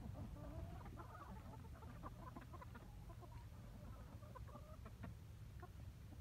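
A flock of chickens clucking faintly while they feed, many short overlapping clucks over a low rumble.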